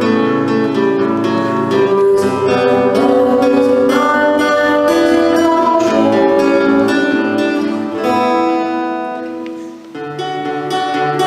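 Guitar playing, plucked and strummed chords with no singing over them; it fades quieter about eight seconds in and picks up again about two seconds later.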